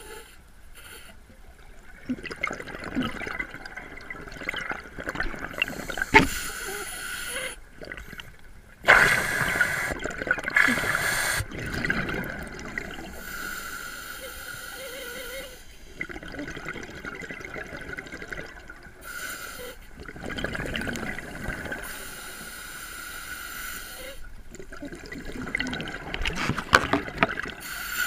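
Scuba diver breathing through a regulator underwater: slow breaths, each exhalation a loud surge of bubbling air, a few times over the stretch.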